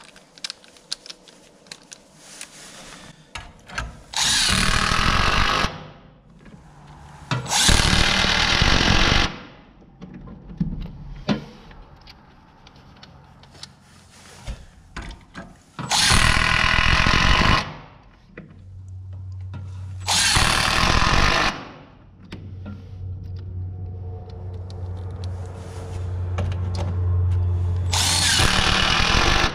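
Cordless impact driver driving screws through a Simpson Strong-Tie steel strap into a wooden truss and beam, in five runs of about a second and a half each, with handling clatter between them.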